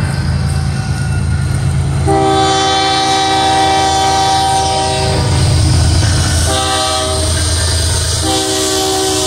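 BNSF diesel freight locomotives passing with a steady low engine rumble, the lead unit's multi-chime air horn sounding a long blast, a short blast, then another long blast: the close of the grade-crossing signal.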